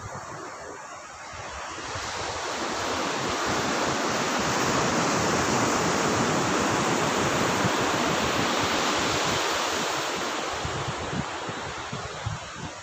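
Sea surf: a wave breaking and washing up the beach, a rushing noise that builds from about two seconds in, is loudest in the middle and dies away near the end.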